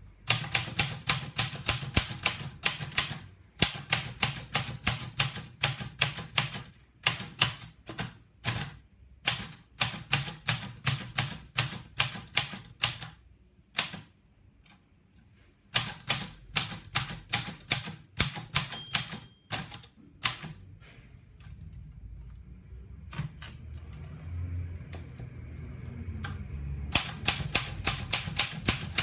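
Patria manual typewriter being typed on: runs of fast, sharp key strikes several a second, broken by a short pause about halfway and a stretch of slower, scattered strokes before fast typing resumes near the end.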